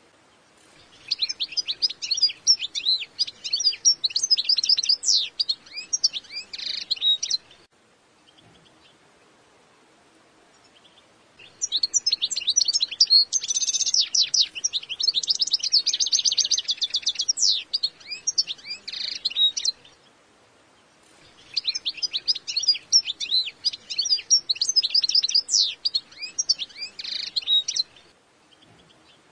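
European goldfinch singing: three long bouts of rapid twittering song, each several seconds, separated by short pauses, the middle bout holding a fast, dense trill.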